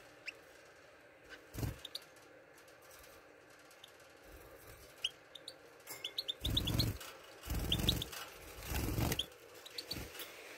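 Caged European goldfinches giving short, high chirping calls in small clusters, with three louder rustling bursts around the middle.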